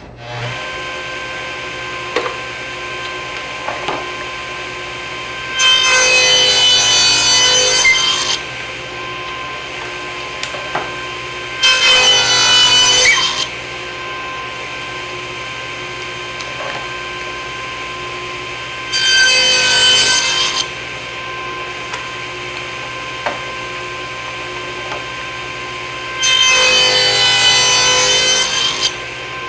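Table saw starting up and running steadily, with four cuts a few seconds each through thin wood stock for homemade biscuits (plate-joiner splines); each cut is louder, with a high ringing whine from the blade in the wood, and light clicks between cuts.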